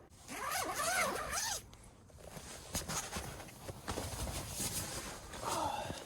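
Tent door zipper being pulled, a long rasping zip in about the first second and a half, then more zipping near the end.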